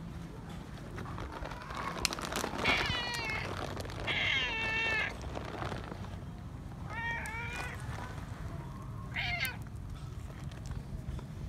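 Feral cat meowing four times, in short calls a second or two apart; the second call is the longest, about a second.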